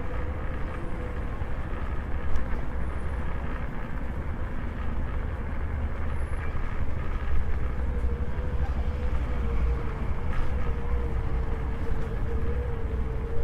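Electric scooter riding over paving: a steady low rumble from the wheels and wind, with a steady motor whine that wavers slightly in pitch as the speed changes.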